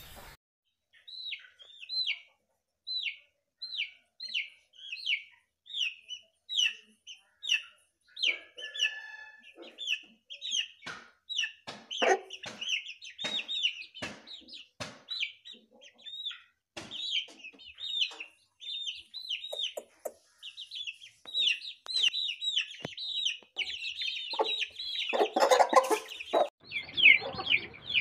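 Parrot-beak Aseel chicks peeping: a steady run of short, high-pitched peeps that fall in pitch, two or three a second, with scattered sharp taps and a brief louder noisy burst near the end.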